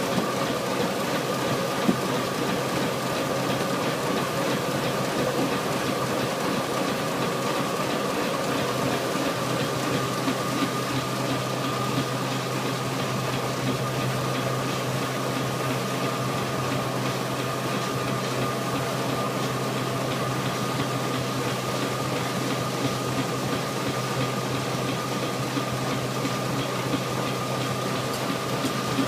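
Burrell 7nhp single-crank compound steam traction engine belt-driving a Marshall threshing machine: a steady, even humming and whirring from the running machinery, with a fixed mid-pitched tone above a lower hum that strengthens about nine seconds in.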